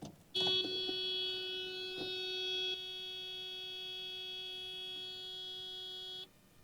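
A steady electronic warning buzzer from the car as the ignition is switched on. It sounds for about six seconds, drops in level partway through and cuts off suddenly, with a few light clicks near the start.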